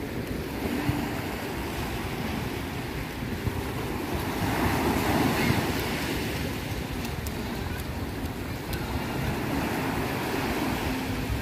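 Small sea waves breaking and washing up a sandy beach, with wind buffeting the microphone. The surf swells louder about four to six seconds in.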